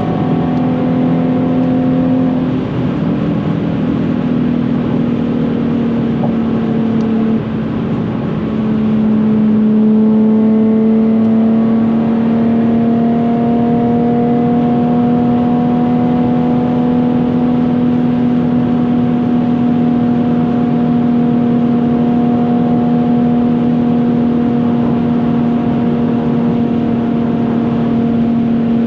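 Nissan 370Z's 3.7-litre V6 through a Tomei titanium exhaust, heard inside the cabin while driving, over tyre and road noise. The engine note shifts pitch with a brief dip in loudness about seven seconds in, then holds a steady drone.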